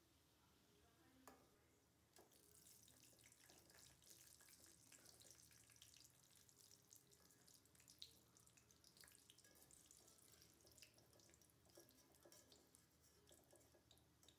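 Faint sizzling and crackling of egg pitha pieces deep-frying in hot oil in a steel karahi, setting in about two seconds in. Two light knocks of a utensil against the pan come just over a second in and around eight seconds in.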